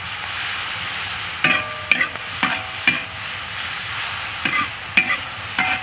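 Ginger, pickled chillies and chilli bean paste sizzling in hot oil in a large wok, with a steady hiss. From about a second and a half in, a metal spatula stirs them, scraping and clinking against the wok about seven times with short ringing tones.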